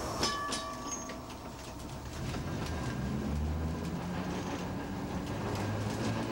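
Philadelphia Nearside streetcar 6618 pulling away under power: a few clicks near the start, then the traction motors' whine rising in pitch as the car picks up speed.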